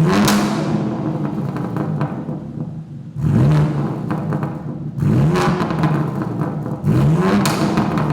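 BMW M3 (G80) S58 twin-turbo straight-six through a custom MufflerDesign exhaust, blipped in four quick free revs. Each rev rises sharply in pitch and then falls back. The revs come near the start and about 3, 5 and 7 seconds in.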